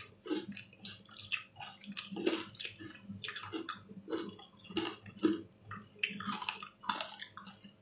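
A person chewing food close to the microphone, with wet mouth sounds coming in irregular bursts about two a second.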